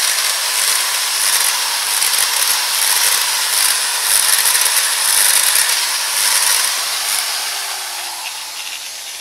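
Bosch GWS 1125 CE angle grinder's brushed motor running free with an uneven, surging sound: it sparks heavily and runs in jerks after new brushes were fitted, which the repairer traces to a deformed commutator.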